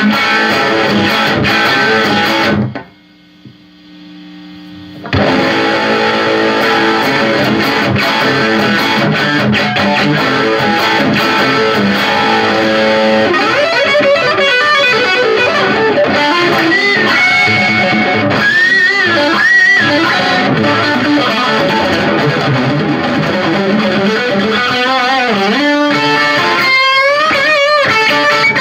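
Electric guitar played through an amplifier with distortion and effects. Dense chords drop away briefly about three seconds in, leaving one low note ringing. Then playing resumes and turns to lead lines with string bends and vibrato in the second half.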